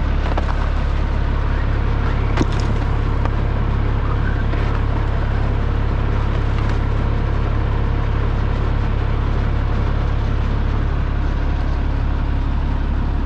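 Fire truck engine idling steadily with a deep, even rumble, with a single sharp click about two and a half seconds in.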